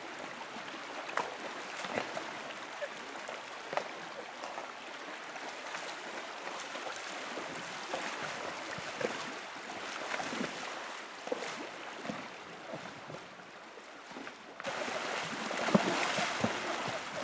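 Horses wading across a shallow, rocky river: flowing water with scattered splashes around their legs, turning suddenly louder and splashier near the end.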